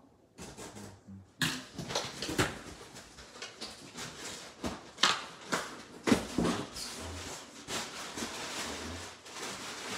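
A cardboard shipping box being opened by hand: the cardboard and its flaps scrape, crackle and rustle, with a string of sharp cracks starting about a second and a half in.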